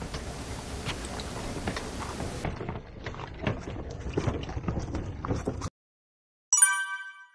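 Wooden camping cart rolling over paving stones, its wheels and frame rattling and knocking unevenly; the rattle cuts off suddenly. About six and a half seconds in comes a short, bright ringing tone that fades quickly.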